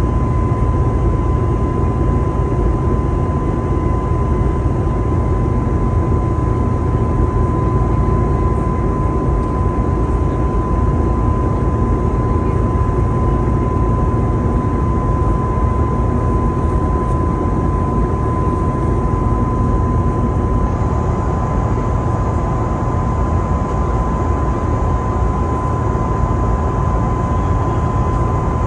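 Steady cabin noise inside an Airbus A320neo airliner in flight: a deep, even rumble of airflow and engines with a steady high tone running through it.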